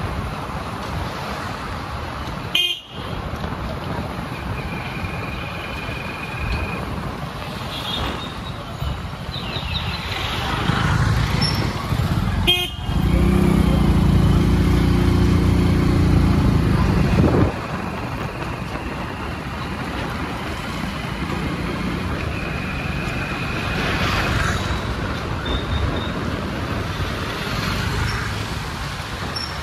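Street traffic with a steady hum of vehicles. Horns toot several times. A motor vehicle's engine passes close by about halfway through and is the loudest sound for a few seconds.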